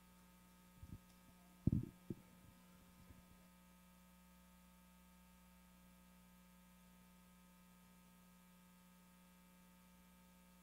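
A few dull thumps of a prop being set down and steps on a wooden stage, the loudest a little under two seconds in, over a steady low electrical hum. After about three and a half seconds only the hum remains.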